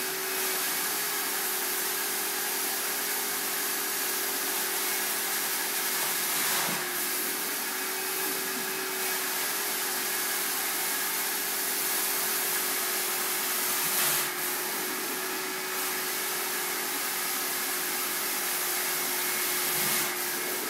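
Carpet steam-cleaning (hot-water extraction) wand sucking water and air out of the carpet: a steady suction hiss with a constant hum underneath. Three brief louder rushes come at about seven, fourteen and twenty seconds in.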